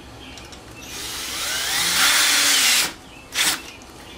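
Cordless drill driving a square-head screw into a wooden board. It winds up over about two seconds with a rising whine and stops, then gives one brief second pulse about half a second later.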